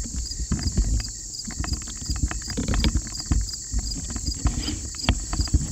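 Irregular knocks and low thumps close to the microphone, from handling and footsteps, over a steady high insect chorus with evenly repeating chirps.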